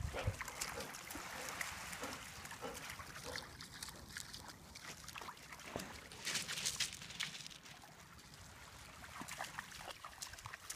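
Shallow water splashing and trickling around a dog wading in the shallows of a pebble beach, louder for a moment just after the start and again about six seconds in.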